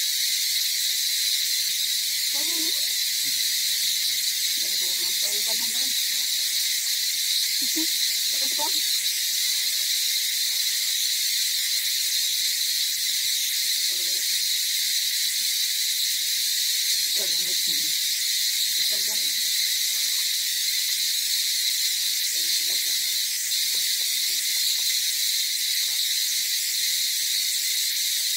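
A steady, high-pitched drone of a chorus of insects. Faint low voices come through now and then, a few seconds apart.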